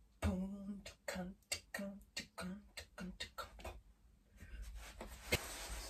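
A woman beatboxing: a quick run of sharp percussive mouth clicks and short hummed notes for about three and a half seconds. Then a hissing rush with one sharp click near the end.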